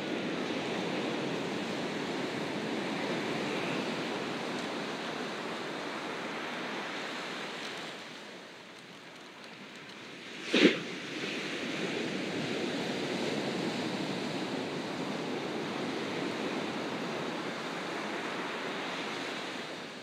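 Ocean surf washing steadily onto a beach, easing off for a moment about eight seconds in. About halfway through comes one brief, loud, sharp thump.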